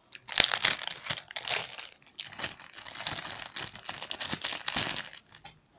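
Packaging crinkling and rustling as it is handled, a dense run of small crackles that stops about five seconds in.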